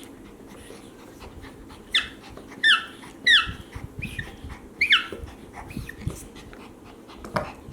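A dog whimpering in short, high-pitched squeals that fall in pitch, about five of them in quick succession.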